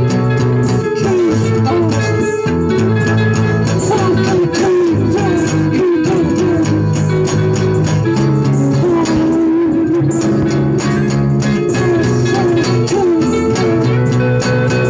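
Instrumental music: a guitar plays a melody of bending, sliding notes over sustained low bass notes.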